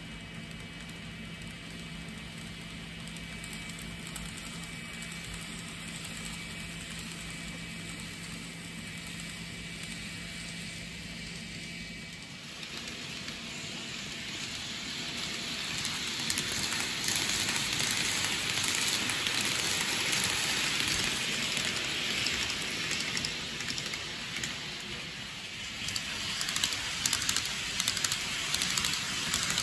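N gauge model train running on the layout track. A steady hum with a faint high whine comes first. About twelve seconds in it gives way to a rattling hiss of wheels on rails that grows louder as the train nears, with a run of quick clicks near the end.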